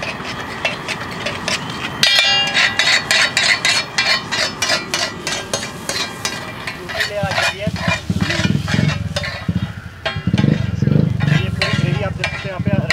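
Flat metal spatula chopping and scraping an egg-and-masala mixture on a large flat iron griddle (tawa): a fast run of sharp metallic clacks over frying sizzle. A low rumble comes in over the second half.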